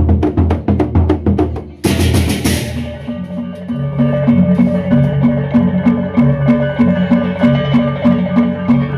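Sasak gendang beleq ensemble playing: large barrel drums beaten in quick strokes, a cymbal crash about two seconds in, then the ensemble settles into a steady repeating pattern of pitched notes over the drumming.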